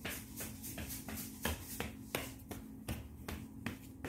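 Toy train running on plastic track out of sight: a faint steady motor hum with light, regular clicks about three times a second, typical of wheels crossing track joints.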